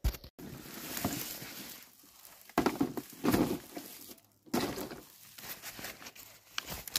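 Dry straw crunching and rustling as a person shifts and settles on it, in several rough bursts, the loudest about three seconds in.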